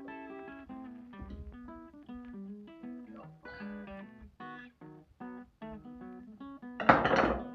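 Background music of plucked acoustic guitar, with a short, loud burst of noise near the end.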